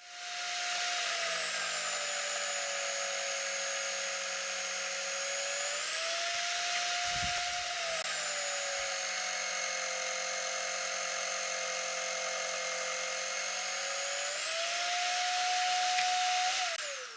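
Electric drill motor on a homemade drill press spinning a sanding drum, with the hiss of plywood being sanded. The motor's whine drops in pitch twice as the wood is pressed into the drum and rises again when it is eased off. Near the end the motor is switched off and winds down.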